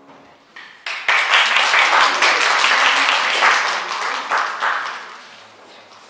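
Audience applauding: a few scattered claps about a second in, then full applause that fades away near the end.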